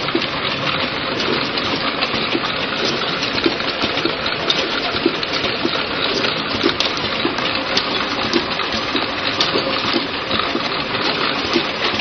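Vial filling, stoppering and capping machine running: a steady dense clatter of many small clicks and rattles as glass vials jostle on its rotary turntable.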